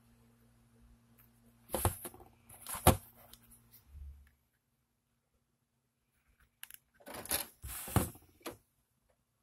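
Clicks and knocks of handling a Magnavox DV220MW9 DVD/VCR combo and opening its DVD disc tray, in two clusters, the second near the end. A low steady hum from the running unit stops about four seconds in.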